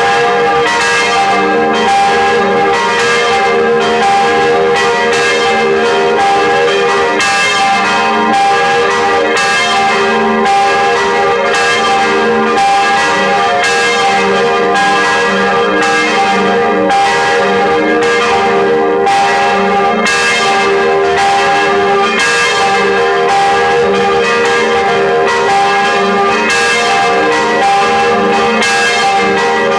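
Church bells pealing, with strokes about once a second and many ringing tones overlapping into a continuous peal.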